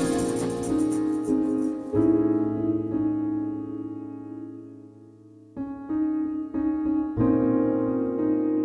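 Background music played on piano: chords struck and left to ring out, fading almost away about two-thirds of the way through before new chords come in.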